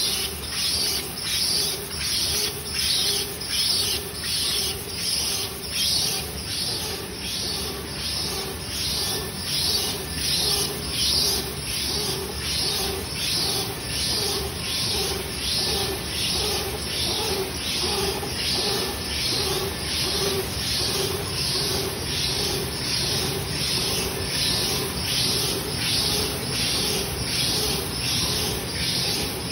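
PP woven bag-making machine running at production speed: an even, rapid cycle of short hissing strokes, just under two a second, each with a low tone, over a steady machine hum.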